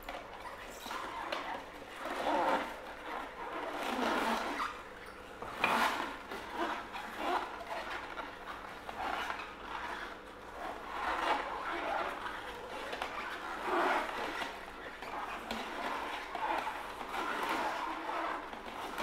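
Optimum 700 cold press juicer's slowly turning auger crushing cucumber, with irregular crunching and cracking as the produce is pressed down the chute.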